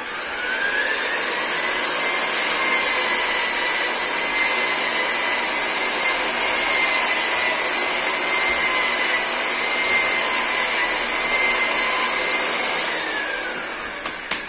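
Electric rotary car polisher with a foam pad running, a brush held against the spinning pad to clean it. Its whine rises as it spins up, holds steady, then falls as it winds down near the end.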